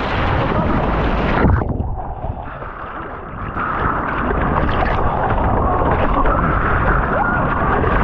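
Ocean surf and wind rushing over the microphone, a loud rough noise that drops off suddenly about a second and a half in and builds back up a couple of seconds later.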